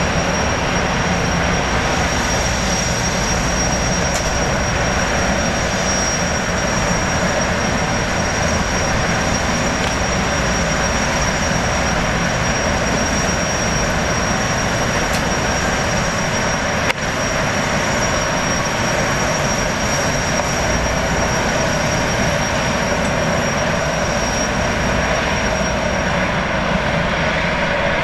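Jetfoil gas turbines running steadily: a loud, even rushing noise with a constant high-pitched whistle on top. A single sharp click about 17 seconds in.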